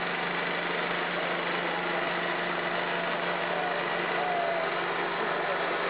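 Steady machinery hum of a running waste-oil vacuum distillation plant, its electric motor-driven oil pumps running at a constant pace, with a steady low hum underneath.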